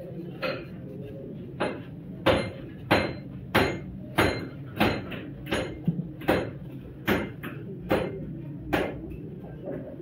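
Hammer striking a steel filler-neck cup being fitted to a plastic radiator tank: a steady series of about a dozen ringing metal blows, a little more than one a second, stopping shortly before the end.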